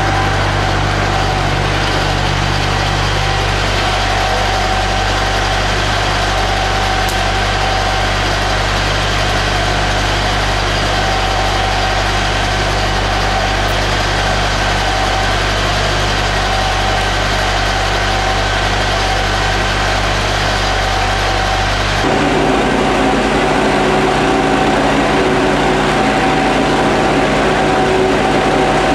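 Engines running steadily: a fire engine's and a petrol-driven smoke-ventilation fan's, making a constant drone with a high whine over it. About 22 seconds in, the deep rumble drops away and a different, higher hum takes over.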